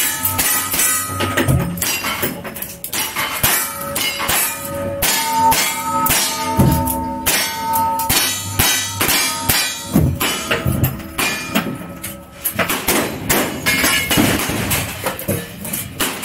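Rapid gunfire from a lever-action rifle and revolvers, shot after shot, each hit on a steel target answered by a ringing clang.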